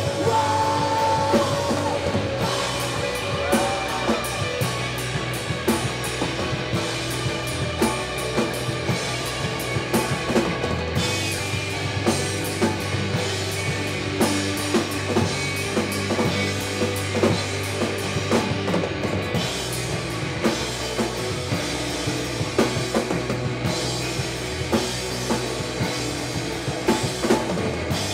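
Rock band playing live: a drum kit keeps a steady beat of hits over bass and guitars, with a short pitched vocal or guitar line in the first few seconds.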